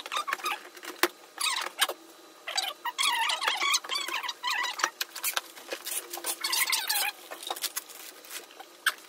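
Cardboard boxes and their packaging being handled, with irregular scraping and rustling on and off and a sharp knock about a second in.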